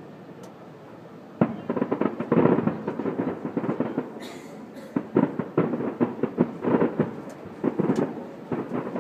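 Fireworks: after a quiet first second and a half, a burst of booms sets off dense, rapid crackling pops from crackle-star shells, coming in waves.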